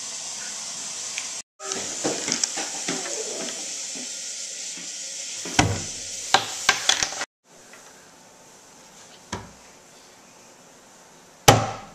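Metal fork and plastic bottle cap clattering on a wooden table as they are handled: scattered sharp clicks and knocks, a cluster of them about six seconds in and a louder knock near the end, over a steady hiss.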